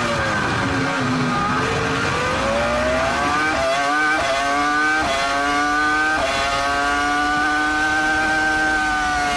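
Onboard sound of a Williams-BMW Formula 1 car's V10 engine: the revs fall as the car slows for a corner, then climb hard with several quick upshifts, each a sudden drop in pitch, before holding high and nearly steady on the straight.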